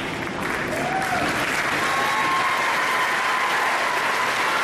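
Audience applauding and cheering for a youth cheerleading routine, swelling about half a second in, with a long held high cheer over the clapping.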